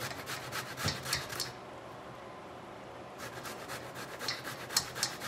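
Raw cassava root being grated by hand on a stainless-steel grater into a steel bowl: quick rasping strokes, stopping for about a second and a half partway through, then starting again.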